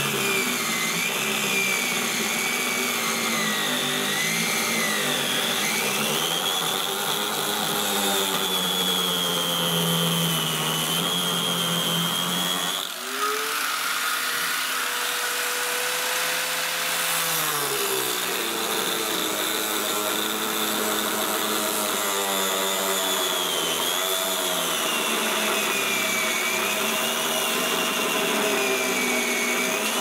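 Angle grinder with a cutting disc sawing through the plastic seam of a sealed washing-machine tub, its motor whine wavering up and down in pitch as the disc works along the cut. About halfway through the pitch holds steady for a few seconds, then wavers again.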